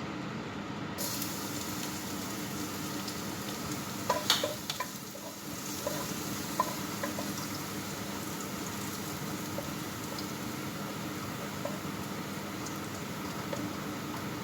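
Garlic frying in hot oil in a pan, a steady sizzle, with a few clicks and knocks of a utensil against the pan about four to five seconds in.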